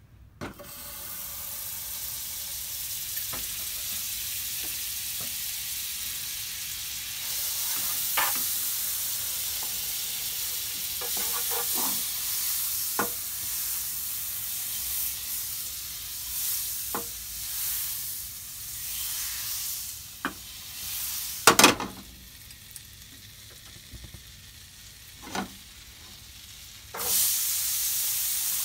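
Butter melting and sizzling in a hot nonstick frying pan, with scattered clicks and a loud clatter about three-quarters of the way through. The sizzle drops off for a few seconds, then swells again near the end as chopped onion, green pepper and sliced red sausage go into the hot butter.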